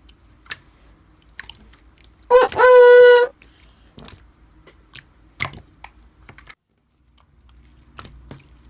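Slime being squeezed and pressed, giving scattered sharp clicks and crackles. About two and a half seconds in, a loud high-pitched note is held for about a second.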